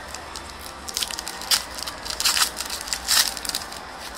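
Crinkling of a foil trading-card pack wrapper being handled and torn open, in several short crackly bursts over a couple of seconds.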